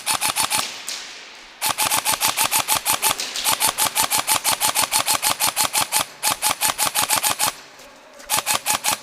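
Airsoft electric rifle, a Systema PTW M4, firing full-auto in five bursts of evenly spaced shots, several a second. The longest burst lasts about two and a half seconds, and the last is short, near the end.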